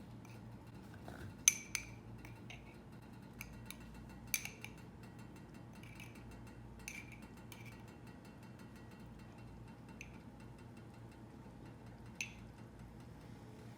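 Tableware clinking: scattered light clinks and taps with a short ring, irregularly spaced, the sharpest about a second and a half in, over a faint steady low hum.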